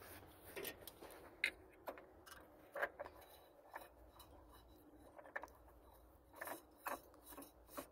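Spin-on oil filter being turned onto its threaded mount by hand: faint scattered clicks and scrapes of metal and hand against the filter, about a dozen, irregularly spaced.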